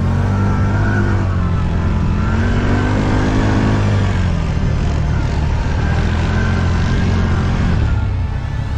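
ATV engine running under throttle, its pitch rising and falling about three times as it speeds up and eases off.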